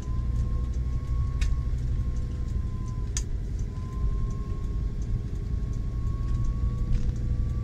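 Road and engine noise heard inside a moving vehicle's cabin: a steady low rumble with a faint, slowly wavering whine and a few short clicks.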